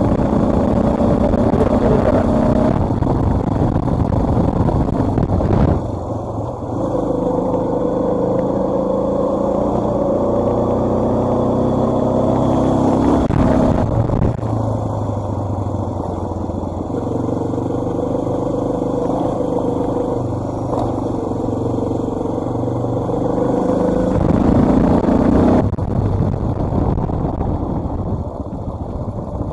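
Dual-sport motorcycle engine running under way, its pitch rising and falling with the throttle, with abrupt changes about six, fourteen and twenty-six seconds in. Heard through a microphone inside the rider's helmet.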